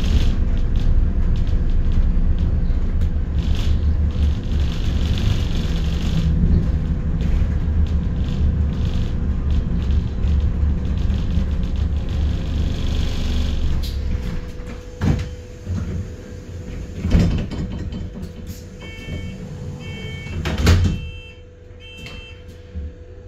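Interior of a bus. The engine rumbles low while it drives, then drops away about fourteen seconds in as the bus comes to a stand. A few sharp knocks follow, and a run of short electronic beeps sounds near the end.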